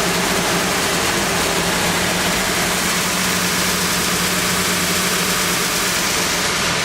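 CNC wide sander for snowboard wood cores running steadily with a constant hum, its sanding head spinning freely before any workpiece is fed through.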